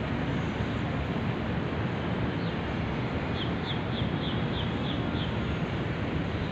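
Steady outdoor city hum, with a small bird giving a quick run of about seven high chirps around the middle.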